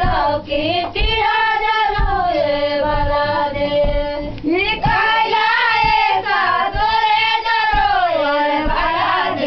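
Women's voices singing a folk dance song together in long, drawn-out melodic phrases with brief pauses between them.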